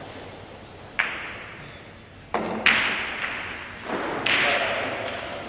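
Billiard cue striking a ball, then ivory-hard billiard balls clacking and knocking as they collide and run around a five-pin carom table: one sharp click about a second in, then a cluster of knocks and clacks in the second half.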